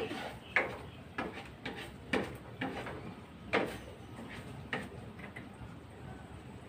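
A cooking utensil scraping and knocking against a metal frying pan as coconut milk is stirred, in irregular strokes every half second to a second that die away after about five seconds.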